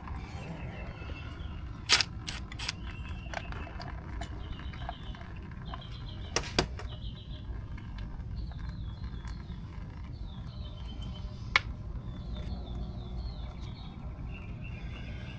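A few sharp metal clinks and knocks of hand tools and small bolts, three of them standing out and the first the loudest, as the ATV's oil filter cover is unbolted and removed. A steady low rumble runs underneath.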